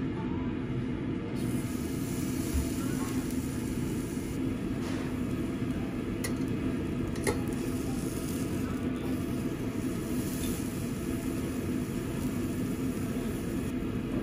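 Thick slab of aged Sendai beef sizzling on a charcoal yakiniku grill, the sizzle starting about a second in, over a steady low hum.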